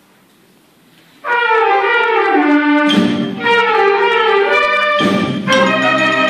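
School wind band of clarinets, other woodwinds and brass starting a piece: after a short quiet pause the whole band comes in together about a second in with falling runs, and the low brass joins a couple of seconds later.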